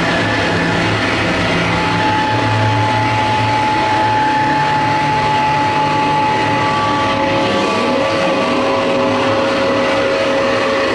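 Live harsh-noise music played on electronic gear through a PA: a loud, unbroken wall of noise over a low hum, with a held high tone coming in about two seconds in and a lower held tone taking over around the middle.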